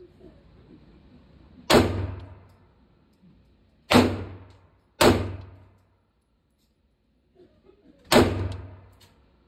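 Four gunshots in an indoor shooting range at uneven intervals, each followed by a long echo off the range's hard walls.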